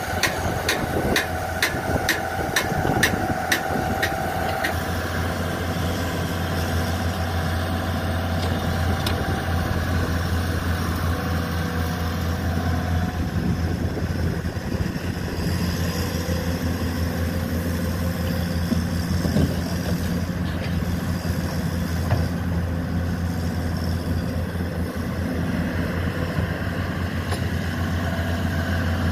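Diesel engines of a Komatsu PC200 excavator and a dump truck running steadily as the excavator digs and loads soil. For the first five seconds or so a regular ticking, about three clicks a second, rides over the engine drone, then stops.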